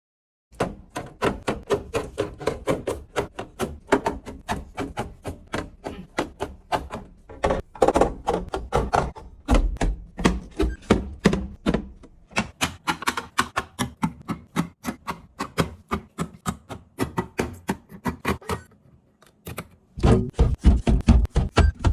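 Rapid clicks, taps and knocks of plastic containers, jars and packets being handled and set down while a fridge is restocked, about four a second. They pause briefly near the end, then come back heavier and deeper.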